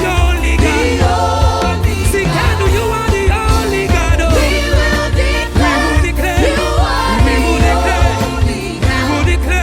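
Live gospel praise-and-worship music: singers over a full band with bass and drums.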